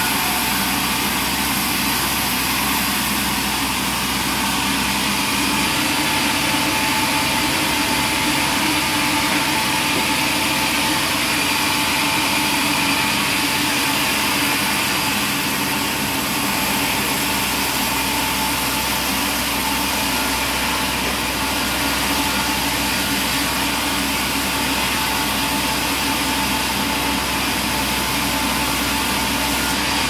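A large sawmill band saw running steadily and cutting timber as the boards are fed through the blade.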